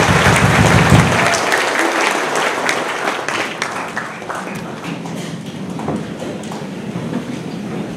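Audience applauding, a dense patter of many hands clapping that is loudest at first and dies away gradually over several seconds.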